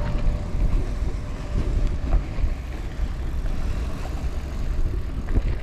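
Rumbling wind and road noise on the microphone of a moving bike, a steady low rumble that swells and dips with no clear engine note.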